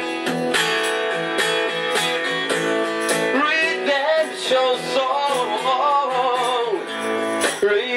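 Acoustic guitar strummed in a steady rhythm, with a man's voice singing a held, wavering melody line over it from about three seconds in.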